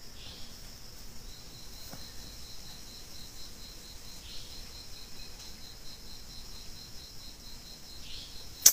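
Night insects chirping steadily, a high, even pulsing call about four pulses a second. A single sharp click near the end.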